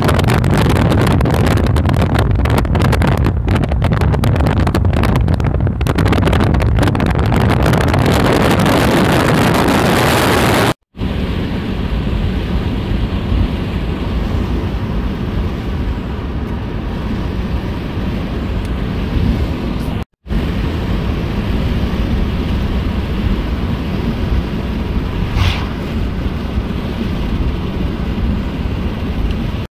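Steady road and wind noise of a car driving along a highway, heard from inside the car. Wind buffets the microphone through the first ten seconds or so. The sound drops out briefly twice, about eleven and twenty seconds in.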